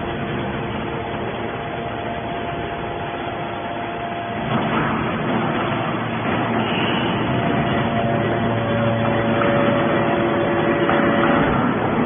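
Hydraulic scrap-metal baler running: a steady drone of its hydraulic pump and motor with several held tones. It grows louder and changes pitch about four and a half seconds in.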